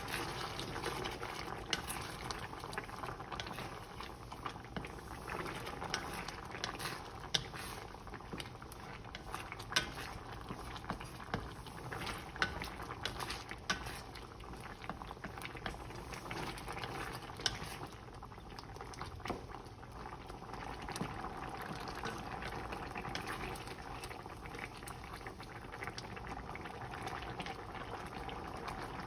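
Chicken yellow curry simmering in a pan, the creamy sauce bubbling steadily, with scattered sharp clicks and pops.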